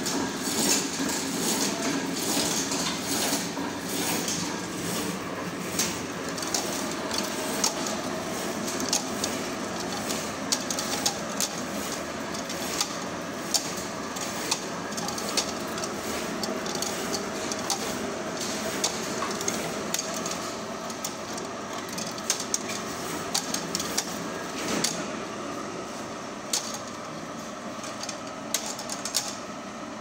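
High-speed shrink wrap packing machine for switch panels running, a steady mechanical noise with frequent sharp clicks, a little quieter in the last few seconds.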